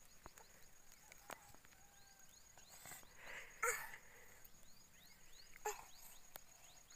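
Faint rural outdoor ambience with small birds chirping in short, rising notes throughout. About three and a half seconds in there is a brief, louder rustling burst.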